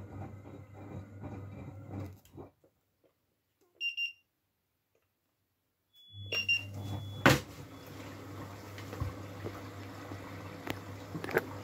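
Miele W433 front-loading washing machine running mid-cycle: a steady hum with water sloshing in the drum. The sound breaks off into silence for a few seconds, in which a short double beep sounds. It then resumes with a brief high tone and a sharp click.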